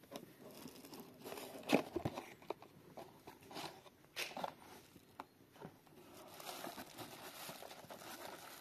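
A cardboard box being opened by hand, its flaps folded back and the plastic packing around the engine crinkling, in irregular rustles and light knocks. The loudest knock comes a little under two seconds in, and a denser run of crinkling follows in the last few seconds.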